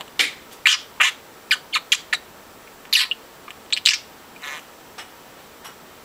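Budgerigar giving a scattered run of short, sharp chirps, then falling mostly quiet for the last second or so.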